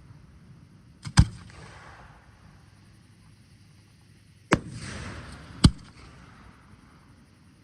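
Fireworks shells bursting in the air. There is a sharp bang about a second in, another about four and a half seconds in with a second of noisy tail after it, and a third sharp bang a second later.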